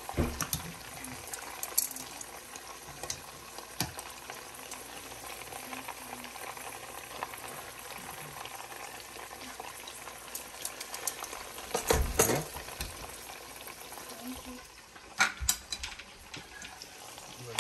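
Chicken frying in hot oil, a steady sizzle, with a few sharp knocks, the loudest about twelve seconds in.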